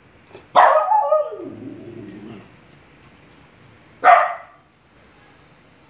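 Small dog barking twice: a drawn-out bark about half a second in that trails off falling in pitch, then a single short, sharp bark about four seconds in.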